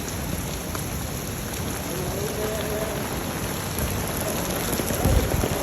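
Heavy rain pouring down in a typhoon downpour, a steady hiss. A short low thump breaks through about five seconds in.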